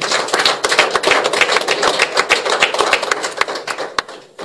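Applause: hands clapping in a quick, irregular patter that dies away near the end.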